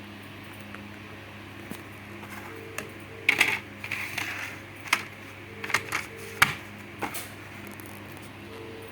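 A run of sharp clicks and clatters from small hard parts being handled, in a quick cluster at first and then spaced out over a few seconds, over a steady low hum.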